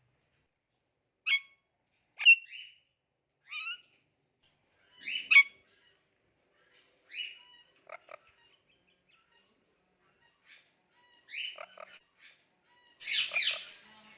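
Indian ringneck parakeet giving short, sharp chirps and squawks, one every second or two with a pause in the middle, then a quicker run of calls near the end.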